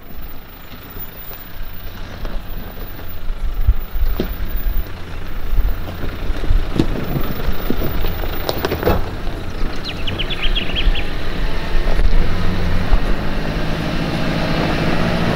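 A four-wheel drive crawling down a steep rocky track, its engine running low and steady, with its tyres crunching and knocking over loose stones. The engine hum grows louder near the end as the vehicle comes closer.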